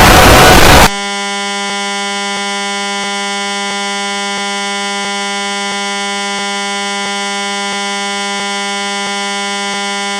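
A burst of loud, harsh static-like noise cuts off abruptly about a second in. It gives way to a steady, low electronic buzz tone at one unchanging pitch, with a faint tick about every two-thirds of a second.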